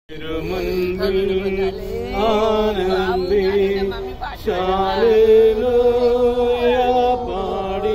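Voices singing a slow funeral hymn or chant in long, held notes, with a short break about four seconds in.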